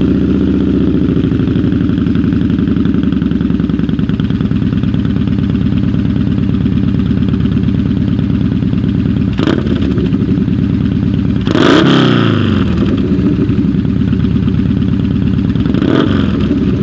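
Yamaha Bolt R-Spec's air-cooled 942 cc V-twin idling with a loose, lumpy beat. There is a short throttle blip a little past halfway, a bigger rev about two-thirds in whose pitch falls back to idle, and another short blip near the end.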